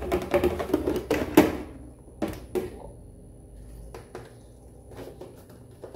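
Aluminium baking pan, upside down on a metal serving tray, knocking and rattling against it as it is handled: a quick run of knocks in the first two seconds, the loudest about a second and a half in, then a few light taps.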